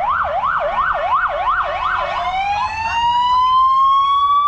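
Emergency vehicle siren in fast yelp mode, sweeping up and down nearly three times a second, then switching a little after two seconds in to a slow rising wail.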